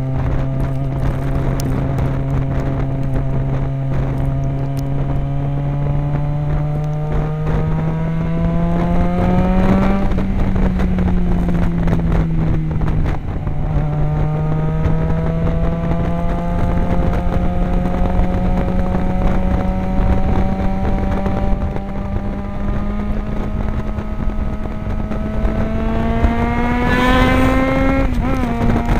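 Yamaha XJ6 motorcycle's inline-four engine running loud through an aftermarket stainless Power exhaust with a carbon-fibre tip. The engine note climbs slowly for about ten seconds and eases back. It then climbs slowly again for about fifteen seconds before dropping near the end.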